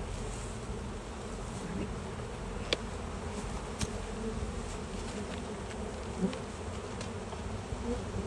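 Honeybees buzzing steadily around an opened hive, a dense drone of many bees. A few short sharp clicks cut through it, the loudest about six seconds in.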